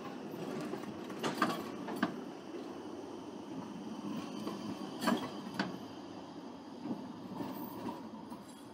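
Tram running along its rails: a steady running noise broken by several sharp clacks, the loudest about a second and a half in and about five seconds in, easing off near the end.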